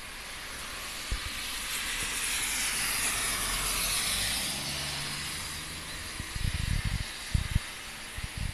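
A car driving past on the rain-soaked road, its tyres hissing through standing water, the sound swelling and fading over a few seconds, over the steady hiss of heavy rain. Several low thumps follow near the end.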